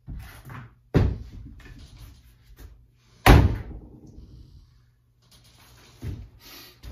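Wooden knocks as a log round is handled on a chopping block, and one loud chop of a True Temper Kelly Perfect double-bit axe biting into the wood a little past three seconds in.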